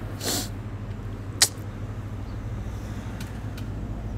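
Handling noise on a phone repair bench: a brief rustle just after the start, one sharp click about a second and a half in, and two faint ticks near the end, over a steady low hum.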